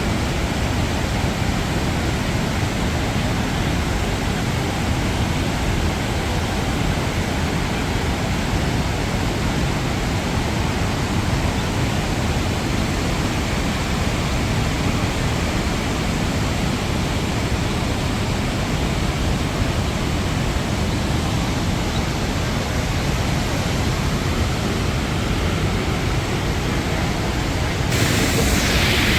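Steady rushing of a large waterfall, the Rhine Falls, as a dense, even wash of water noise. About a second before the end it turns louder and hissier.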